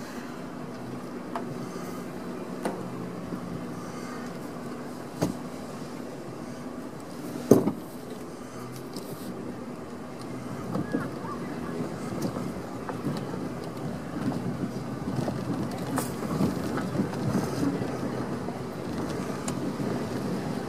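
A vehicle moving slowly over a grass field, with a steady low engine hum and rumble. There is a sharp knock about five seconds in and a louder one at about seven and a half seconds, and the rumble turns rougher in the second half.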